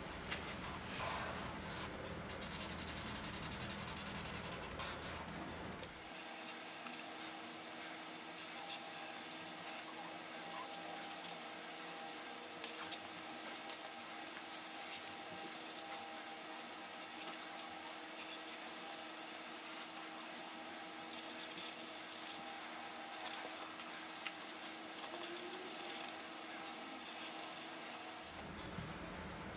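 Black marker pen scratching and rubbing on paper through the cut-outs of a plastic stencil, in short strokes as the shapes are filled in, busiest about two to five seconds in. A faint steady hum lies underneath.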